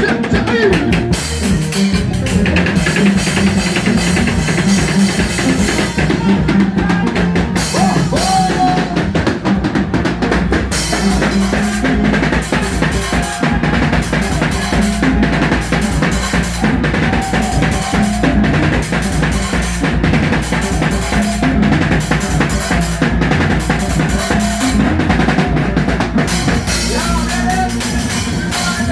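Band music driven by a drum kit: bass drum, snare and rimshot strikes keeping a steady beat over the rest of the band.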